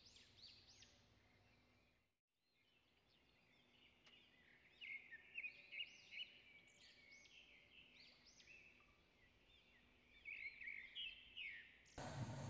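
Near silence, with faint high bird chirps in the background in two short spells, around the middle and near the end.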